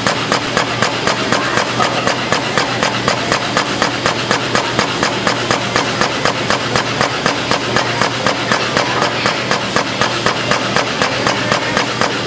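Wire-processing machinery running, with a rapid, even clacking at about four strokes a second over a steady low hum.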